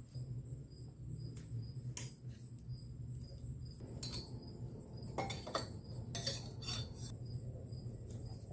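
A few short metallic clinks and clatters of small engine parts being handled during a pit bike engine rebuild, heaviest a little past the middle. A cricket chirps steadily over a low hum throughout.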